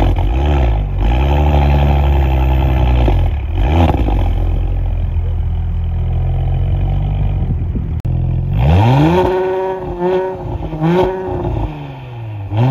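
2021 Audi S4's turbocharged V6 through its quad-tip exhaust set to sport mode. It idles steadily with a few short throttle blips in the first four seconds. About nine seconds in it is revved hard, held high with two brief dips, and let fall back near the end.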